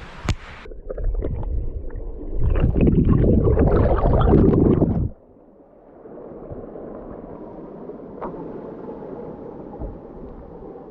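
Rumbling wind buffeting on the microphone with scattered knocks, which cuts off suddenly about five seconds in. After it comes the steady rushing of a river.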